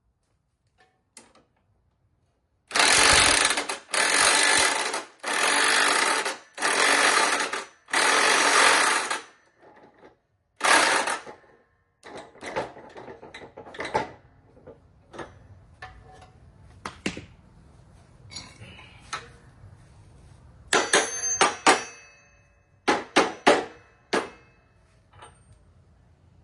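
Power tool run in five bursts of about a second each, then one shorter burst, as bolts on the mower deck's spindle are worked. This is followed by scattered sharp metal clicks and clinks of tools and parts being handled.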